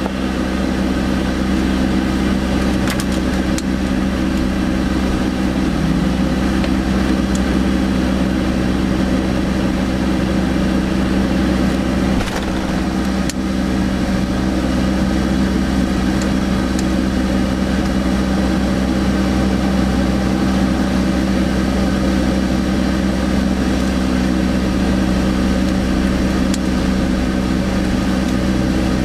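Tow truck's engine running steadily at low speed as the truck backs up to a pickup, heard from inside the cab, with a few faint clicks.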